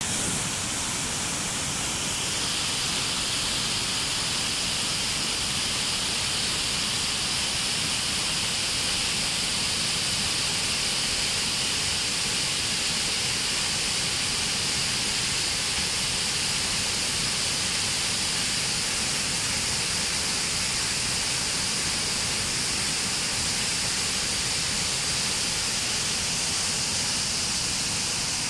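Waterfall pouring down a rock face into a pool: a steady, unbroken rush of falling water.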